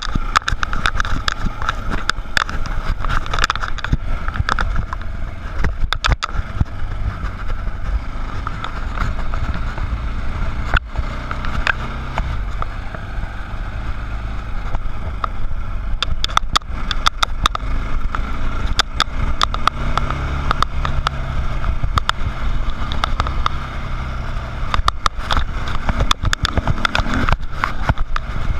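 Dirt bike engine running while riding a rough dirt trail, with heavy wind buffeting on the microphone and frequent sharp knocks and rattles from the bike going over the ground.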